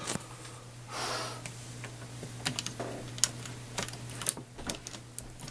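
Irregular small plastic clicks and rattles of a power plug and cord being handled at a wall outlet, with a brief rustle about a second in, over a low steady hum.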